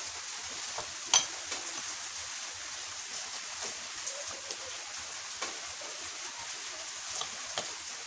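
Metal gearbox parts of a Hero 100cc motorcycle engine clicking and clinking as the gear shafts and selector forks are worked by hand into the crankcase. One sharp ringing metallic clink about a second in, then scattered light clicks over a steady hiss.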